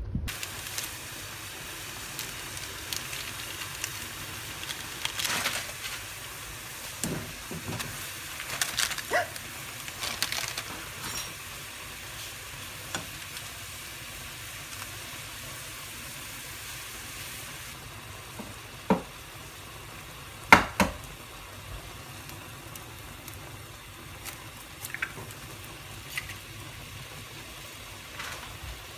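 Instant ramen noodles boiling in broth in a frying pan: a steady bubbling sizzle, with scattered sharp clinks of metal tongs against the pan. The loudest clinks come as a pair about two-thirds of the way through.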